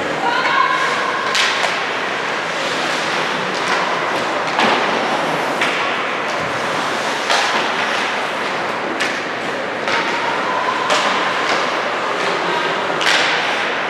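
Basketball game in a gym: repeated thuds of the ball bouncing on the court and short sneaker squeaks, over a steady murmur of the crowd.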